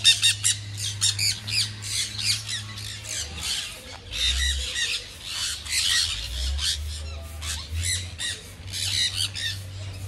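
A flock of sun conures screeching: harsh, high squawks one after another, many overlapping, without a break.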